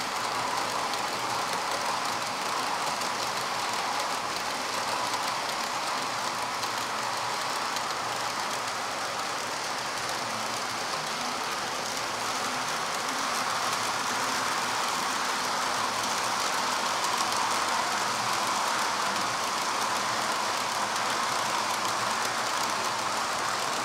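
OO gauge model train running along the track: a steady whirr of the locomotive's motor and the wheels rolling on the rails.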